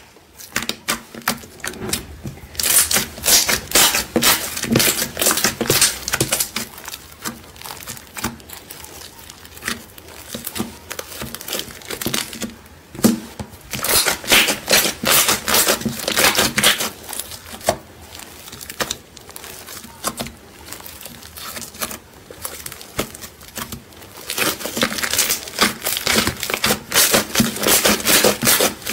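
Hands pressing, stretching and kneading slime, making dense runs of small wet pops, clicks and crackles. The crackling grows loud in stretches and eases off between them.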